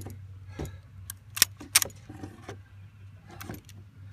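Rifle fire from 7.62 mm FAL-pattern rifles: sharp single shots, with two loud shots about a third of a second apart roughly a second and a half in and fainter shots before and after.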